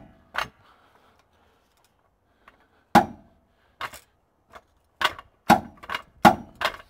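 Sharp metallic clanks from a jack raising a Holden VY ute's diff centre. There is one clank just after the start and another about three seconds in, then a quick even run of about five, a little over two a second, near the end.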